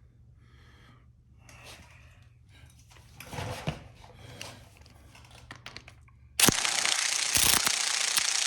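Faint tool handling with a small clunk, then about six and a half seconds in an impact wrench starts suddenly and runs loudly and steadily on a stuck fastener at the motorcycle's front sprocket.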